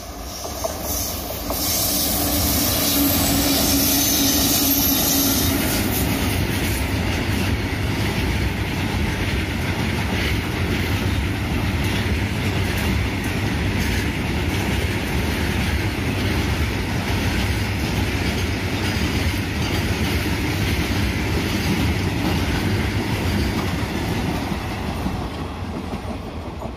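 Freight train of BCNA covered wagons hauled by twin WAP-4 electric locomotives running past. As the locomotives go by in the first few seconds it is loudest, with a held hum and hiss. The steady rolling noise of the wagons' wheels on the rails follows and fades near the end as the brake van passes.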